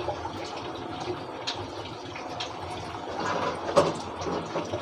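Fish curry simmering in a pot on the stove: a steady low bubbling hiss with small pops throughout, and one sharp click a little under four seconds in.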